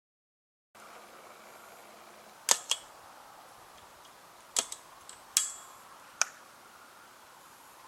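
After a moment of dead silence, a faint steady hiss broken by about seven sharp, irregular clicks and taps, the loudest a close pair about two and a half seconds in.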